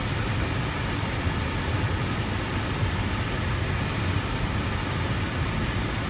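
Steady cockpit noise of an Airbus A319 airliner on approach: an even low rumble with a rush of airflow.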